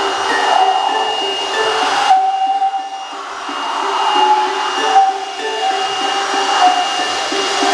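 Cordless handheld electric blower running, a steady motor whine with rushing air that wavers in pitch. It drops off about two seconds in, then picks up again.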